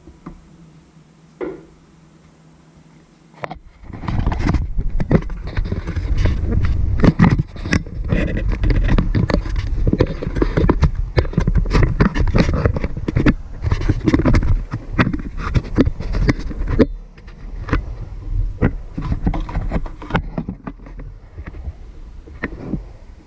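Handling noise from the camera being gripped and adjusted: a heavy rumble with rubbing, scraping and many knocks on the microphone, starting about three and a half seconds in and easing to lighter knocks for the last few seconds.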